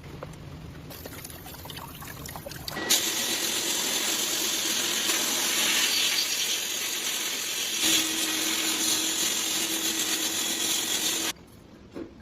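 A loud, steady hiss like a high-pressure spray, with a faint steady hum under it, starting about three seconds in and cutting off suddenly near the end.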